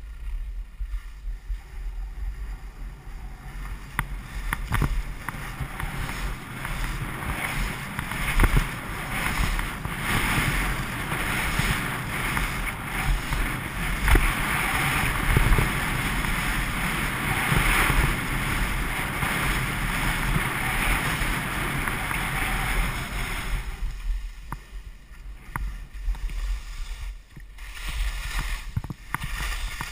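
Skis sliding and scraping over snow on a steep, bumpy slope, with wind buffeting the skier's own camera microphone as a low rumble and scattered sharp knocks. The hiss grows louder through the middle and eases for the last several seconds.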